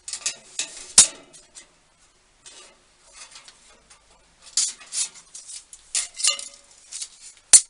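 Irregular light metallic clinks, rattles and scrapes from handling metal, with a sharp click about a second in and another just before the end.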